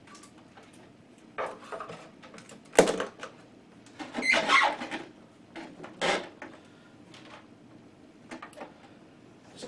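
A CRT monitor and its side speakers being slid and nudged into place on a wooden desk: a few short scrapes and knocks, the sharpest knock about three seconds in.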